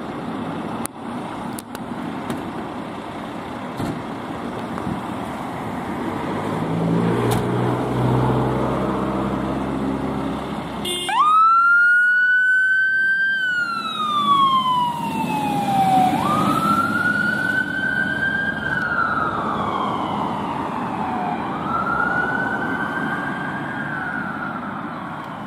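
Volvo FL fire engine's diesel engine running as the appliance pulls out on a call. About eleven seconds in its siren starts, a wail that rises quickly and falls slowly, repeating about every five seconds.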